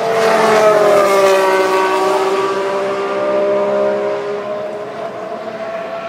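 A Formula 1 car's turbocharged V6 engine going past at speed. The engine note is loudest about a second in and falls in pitch as the car goes by, then carries on as a steadier, quieter note.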